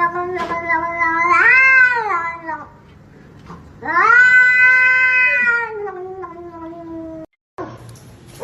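A cat making long, drawn-out meows. One held note swells up in pitch and falls back, then a second long call slowly slides down.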